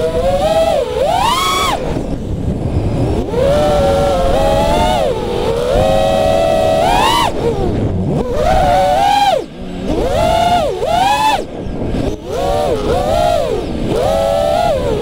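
FPV freestyle quadcopter's brushless motors and propellers whining, the pitch repeatedly swooping up and dropping back with each throttle punch and dive. Wind rushes over the onboard camera's microphone.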